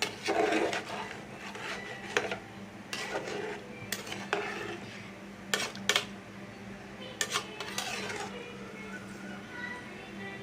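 A metal spoon knocking and scraping against a cooking pan as curry gravy is stirred, with irregular clinks every second or so.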